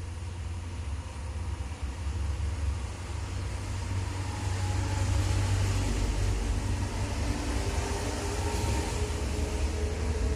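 A motor vehicle engine runs with a low rumble amid street traffic noise, growing louder about four seconds in.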